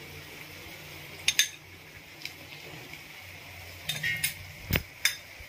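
Kitchen utensils clinking against a shallow steel pan and bowl as chilli powder is spooned in: a couple of sharp clinks about a second in and a quicker run of clinks near the end, over a low steady hum.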